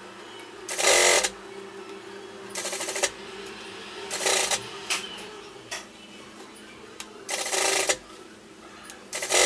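Straight-stitch sewing machine stitching in short runs, about five bursts of under a second each with pauses between, as a sleeve is sewn into a jacket's armhole.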